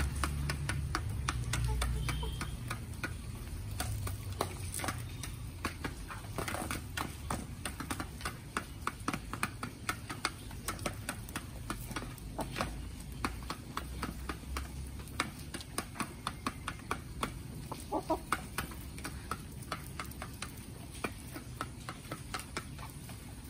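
Chickens pecking at feed in and around a feeder pan, beaks tapping in quick, irregular clicks, several a second. A low rumble comes in the first seconds, and a single short cluck about three quarters of the way through.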